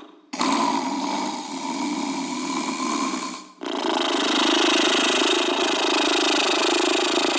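Exaggerated, comical human snoring: a long snore lasting about three seconds, a short break, then another long snore.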